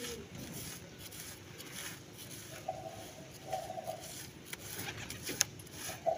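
Quiet handling of a pigeon as dye is brushed onto its feathers: soft rustles and scattered light clicks, with one sharp click about five seconds in. Near the middle, a pigeon gives two short coos.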